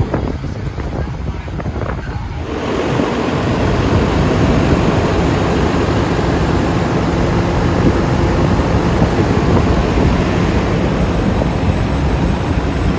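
Heavy diesel truck engine rumbling. About two seconds in, a loud, steady rushing noise of wind buffeting the microphone comes up and covers it.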